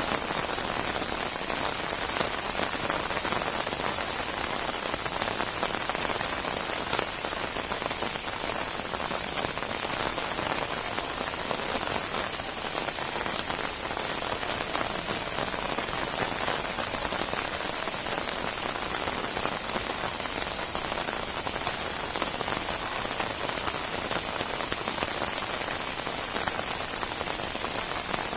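Steady heavy rain falling on a surface, a dense even hiss of drops with fine pattering throughout.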